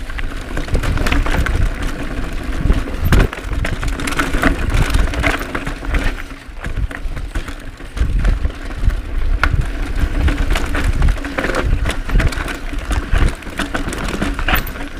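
Cannondale Claymore full-suspension mountain bike riding down rocky, rooty singletrack: tyres knocking over rocks and roots and the bike clattering, with wind rumbling on the chest-mounted microphone.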